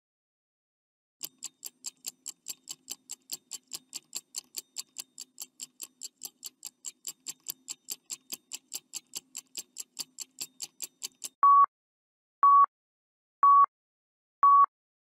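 Countdown timer sound effect: a clock ticking about four times a second, starting about a second in and stopping near the end, followed by four short beeps one second apart counting down the last seconds.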